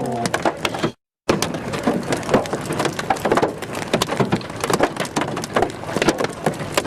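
Large hailstones hitting a car, a dense run of sharp, irregular knocks. The sound cuts out completely for a moment about a second in.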